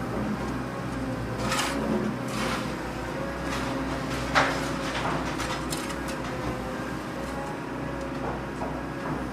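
Excavator working steadily with a constant whine, with a few short scraping knocks from the bucket and soil about one and a half, two and a half, and four and a half seconds in.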